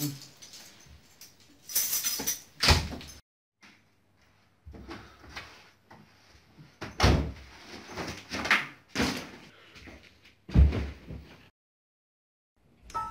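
Room doors being handled, opened and shut: latch and handle clicks with a series of sudden knocks and thuds, the loudest a pair of bangs about two to three seconds in and a heavy thud near the end.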